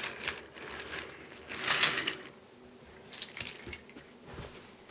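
Plastic toy train and track pieces clicking and rattling as the engine and its cars are moved along, with a scraping rattle about two seconds in and a few sharp clicks a little later.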